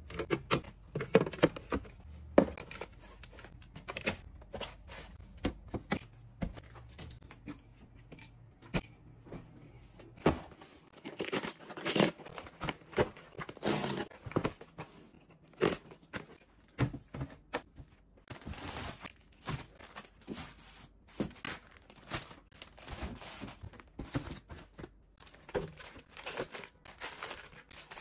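Groceries being put away by hand: a steady run of light knocks as plastic containers are set on refrigerator door shelves, a cardboard box handled on a counter, and crinkling of small foil snack bags being stuffed into a fridge door bin near the end.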